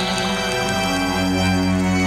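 Music from a rock band's demo recording: steady, held chords with no singing.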